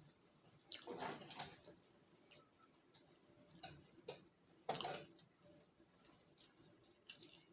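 Eating sounds close to the microphone: a person chewing food, in a few short, irregular bursts about a second in and again around five seconds in.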